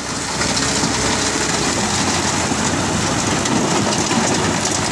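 A load of broken stone sliding and clattering out of a tipped dump truck bed onto a rock pile, a steady dense rattle that swells just after the start, with the truck's engine running beneath it.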